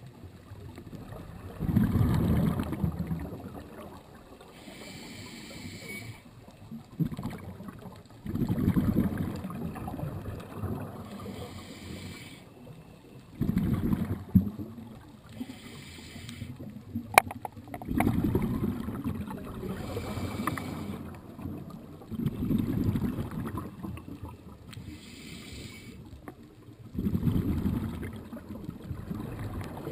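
Underwater sound of a scuba diver breathing through a regulator: a burst of exhaust bubbles rumbles every four to five seconds, with hissing inhalations between them. A single sharp click comes near the middle.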